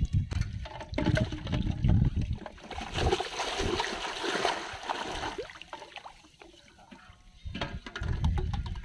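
Shallow floodwater splashing as a person wades quickly through it, loudest about three to five seconds in. Low rumbling thumps come before and after the splashing.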